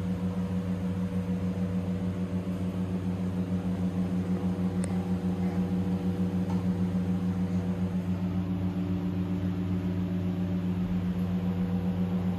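Steady low mechanical hum with several pitches held together, unchanging throughout.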